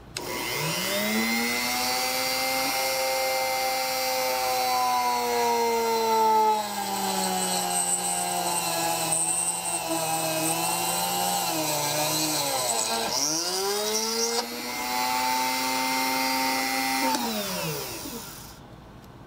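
Dremel rotary tool in a hobby drill press drilling a 1/16-inch hole through a mild steel fender washer. The motor's whine spins up, sags in pitch under the load of the cut, dips sharply and picks back up about two-thirds through, then winds down near the end.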